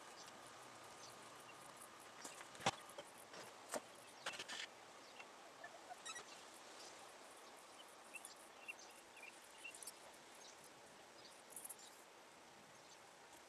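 Near silence: faint outdoor background with a few short, faint clicks and knocks a few seconds in.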